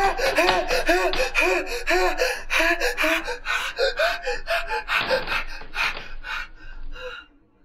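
A young man's rapid, pitched gasping cries, about three a second. Around five seconds in they turn into breathier gasps, which die away near the end.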